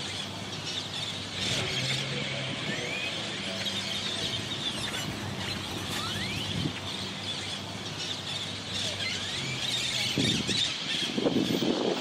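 Great-tailed grackles gathering at a roost, thousands calling together in a dense chorus of squeals and chatter with now and then a rising whistle. Traffic hum runs underneath, and a vehicle's low rumble grows louder near the end.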